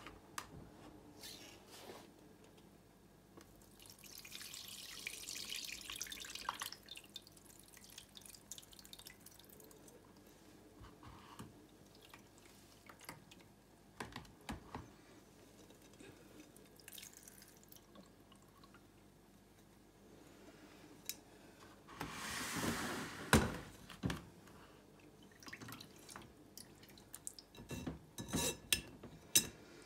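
Brine and salted pike roe poured through a cheesecloth-lined strainer, with liquid running and dripping into the bowl beneath; two longer pours, a few seconds in and again a little past two-thirds through. Several light knocks of the strainer against the glass bowl near the end.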